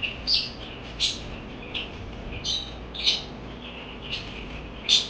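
Pet parakeets giving short, high chirps, about seven of them at irregular intervals.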